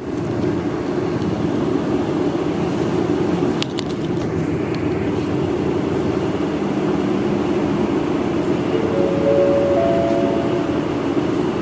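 City bus engine heard from inside the passenger cabin, running steadily as the bus is under way, with a couple of clicks about three and a half seconds in and a rising whine near the end.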